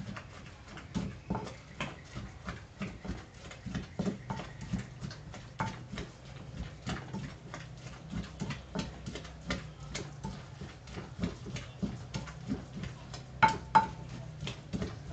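Pestle pounding chili paste in an earthenware mortar: a steady run of dull knocks, about two to three a second, with two sharper, louder strikes near the end, as the paste is pounded fine.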